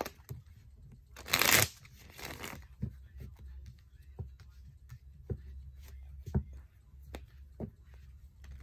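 A deck of tarot cards being shuffled. There is a loud rush of cards about a second and a half in and a shorter, softer one just after. Then come scattered light clicks and taps of single cards.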